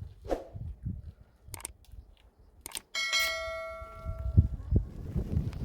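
A few scattered knocks, then about three seconds in a metal object is struck once and rings with several clear tones, fading over about a second. Low wind rumble follows near the end.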